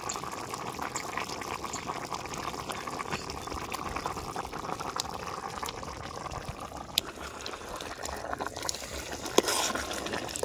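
Liquid bubbling steadily at a boil in a cooking pot, with scattered small clicks and a louder knock about nine seconds in.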